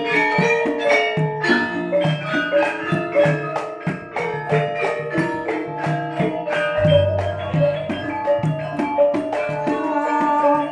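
Javanese gamelan ensemble playing: bronze metallophones struck in a quick, even pattern over ringing tones, with short low kendang drum strokes. A deep gong note comes in about seven seconds in and hangs under the rest.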